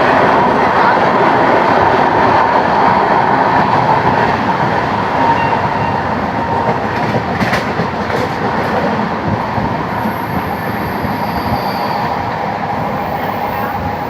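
Steady, loud rumble and rush of a moving vehicle, easing off slightly toward the end, with a few sharp clicks about seven and a half seconds in.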